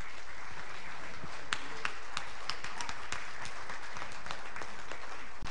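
Congregation applauding: a steady wash of clapping with a few sharper individual claps standing out.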